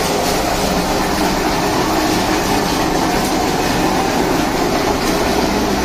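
Mango pulping machine with a stainless-steel drum running, a steady, loud mechanical noise, while mango pulp streams out of its chute.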